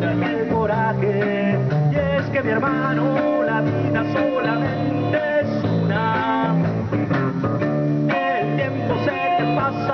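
Live electric blues: an electric guitar played through an amplifier over a drum kit, with a man singing.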